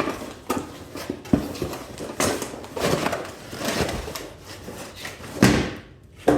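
Packaging being handled as parts are lifted out of a cardboard box: rustling and scraping with a string of clicks and knocks, the loudest knock about five and a half seconds in.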